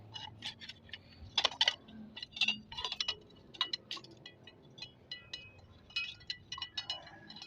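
Light metal clinks and taps at an irregular pace, several a second at times, many leaving a short ringing tone, as metal pieces are struck or handled.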